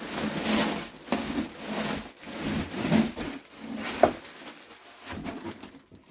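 Packaging of a shipped golf bag being cut and pulled open by hand: irregular scraping and rubbing strokes with a sharp knock about four seconds in, dying down near the end.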